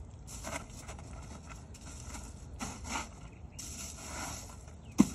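Fish and ice being shifted in a cooler by hand: a few soft scrapes and rustles, then one sharp knock near the end.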